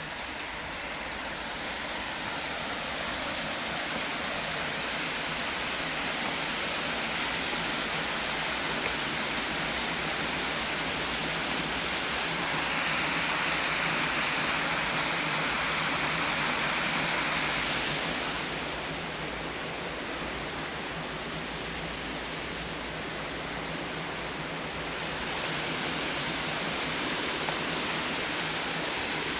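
Shallow water rushing between concrete stepping stones, a steady rush that swells a little about halfway through.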